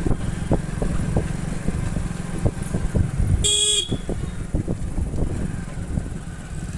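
Hero commuter motorcycle engine running at low speed, with scattered clicks and knocks. A single short horn toot sounds about three and a half seconds in.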